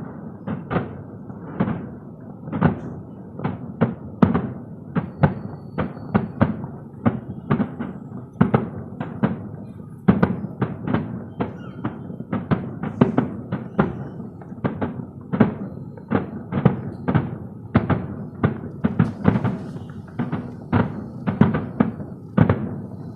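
Fireworks going off in quick, irregular succession, a steady barrage of deep booming bursts that echo, about two or three a second.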